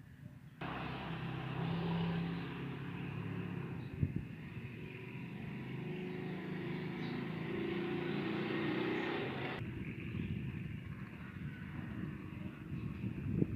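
An engine running steadily at a slightly wavering pitch. It starts abruptly about half a second in and cuts off abruptly a few seconds before the end, leaving fainter background noise with a few knocks.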